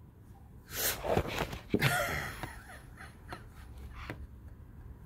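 A woman's breathy vocal sounds close to the microphone: a short sharp breath about a second in, then a longer breathy exhale just after two seconds.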